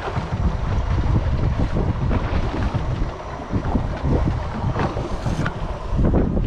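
Strong wind buffeting the microphone on a drifting boat offshore: a loud, gusty low rumble, with occasional brief knocks.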